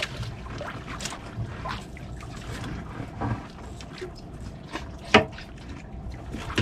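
Small fishing boat at sea: a low, steady hum with water lapping, and a few sharp knocks, the loudest about five seconds in.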